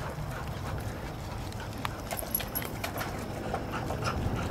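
Dogs' claws and paws clicking on a wooden deck as they walk about: scattered, irregular light clicks.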